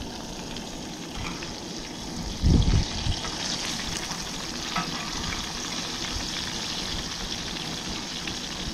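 Pieces of yellow bullhead catfish frying in hot oil: a steady sizzle with a few small pops, and one low thump about two and a half seconds in.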